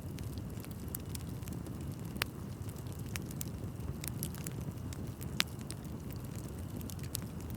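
Bonfire of burning wood crackling: a steady low rumble of flames with frequent sharp pops and snaps, two louder pops about two and five seconds in.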